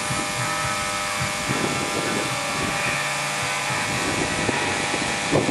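Battery test rig driving three D-cell batteries in series from a high-current transformer, about 30 volts and up to 60 amps, so the cells are being cooked by overload. A steady, loud buzzing hiss.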